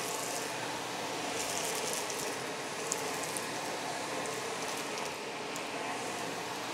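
Philips Turbo Compact TC535 canister vacuum running steadily, a constant rush of air with a few faint clicks.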